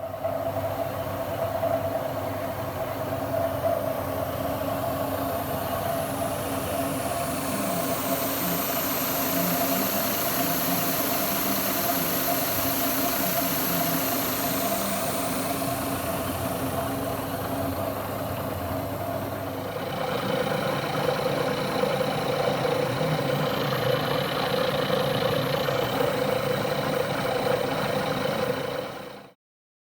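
Metalworking machine tool running steadily with a constant hum. About twenty seconds in its tone changes to a new steady pitch with more high ringing.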